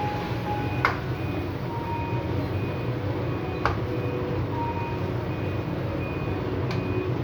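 Chicken and ground spices frying steadily in a karahi, with three sharp clicks of the stirring spoon against the pan.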